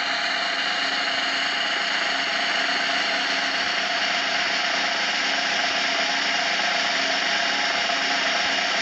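A machine running steadily with an even whirring noise and a faint hum underneath, unchanging throughout.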